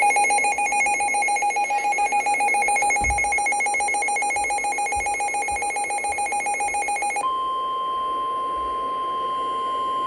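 Weather radio alert tones: a rapidly pulsing alarm for about seven seconds, then the steady 1050 Hz NOAA Weather Radio warning alarm tone for about three seconds, which cuts off sharply. It announces a warning broadcast, here a severe thunderstorm warning.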